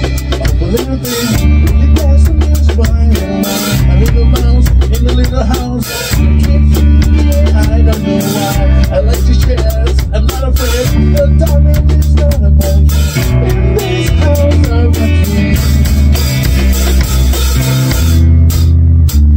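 A live rock band playing: drum kit, acoustic guitar and electric guitar together, with a heavy low line underneath and steady drum hits throughout.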